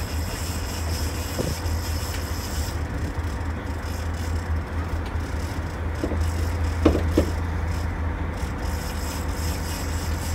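A sportfishing boat's engine running with a steady low hum under wind and rushing sea water. Two sharp knocks come close together about seven seconds in.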